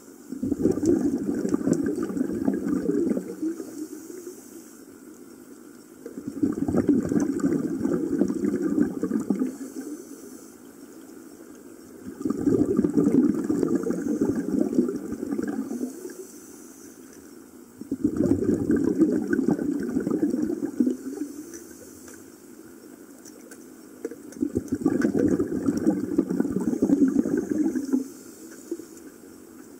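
Scuba diver breathing underwater through a regulator: five long exhalations, each a rush of bubbles about three seconds long, coming about every six seconds, with quieter gaps between breaths.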